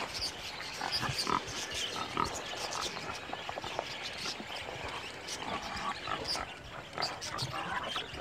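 Wild hogs grunting and squealing, with short calls scattered among many small clicks and rustles.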